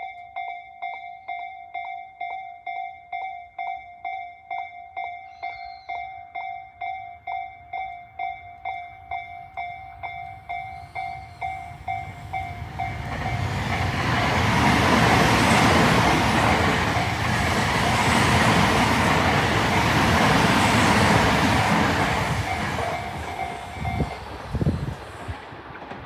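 Japanese railway level-crossing bell, the Tobu Tojo Line type, ringing at about two strokes a second while an electric commuter train approaches and passes over the crossing. The train noise swells about twelve seconds in, is loudest for several seconds, then fades; the bell stops near the end as the crossing clears.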